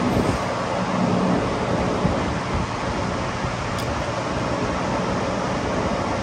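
Steady rushing hum of an electric fan running, with a faint light click near the middle.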